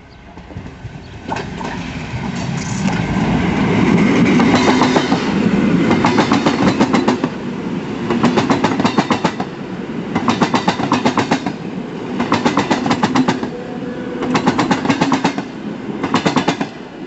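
PKP electric multiple unit passing close by: its sound builds over the first few seconds, then the wheels clatter over the track in quick bursts about every two seconds as the cars go by.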